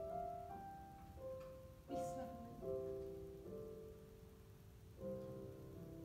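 Piano playing slow, held chords that change every second or so, the accompaniment to a musical-theatre song.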